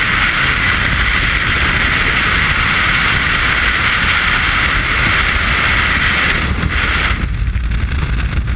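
Loud, steady rush of freefall wind over the camera microphone during a skydive, with low buffeting rumble. It thins out for a second or so near the end.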